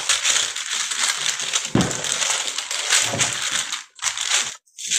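Steady rustling and crinkling noise with a few soft knocks, cutting out briefly near the end.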